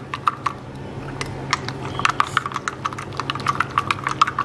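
Metal teaspoon stirring sugar and salt into water in a glass tumbler, clinking rapidly and irregularly against the glass, several clicks a second and busier after about two seconds.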